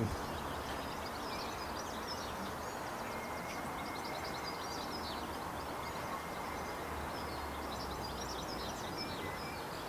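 Birdsong from the trees around the marina: many small birds chirping and singing throughout, over a steady low background rumble.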